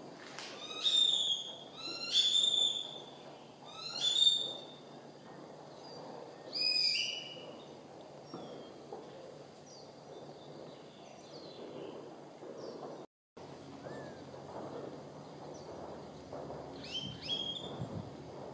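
A bird calling, each call a quick run of notes stepping downward in pitch: four loud calls in the first seven seconds and a fainter one near the end, over a steady low background noise.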